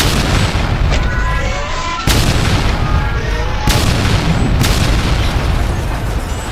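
Edited explosion sound effects: four sudden blasts, at the start and about two, three and a half and four and a half seconds in, each followed by a heavy low rumble.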